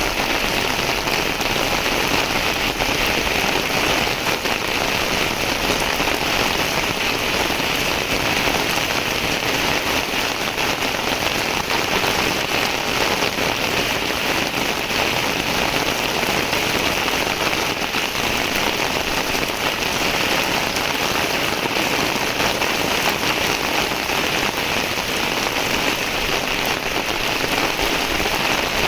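Heavy rain falling, a steady dense hiss that does not let up.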